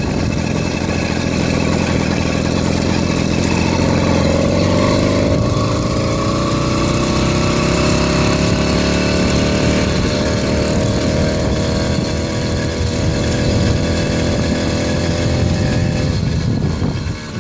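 80cc two-stroke motorized-bicycle engine running under way; its pitch climbs over several seconds, then holds steady and sags a little near the end. It is not reaching its power band, and the owner takes it to be running extremely rich.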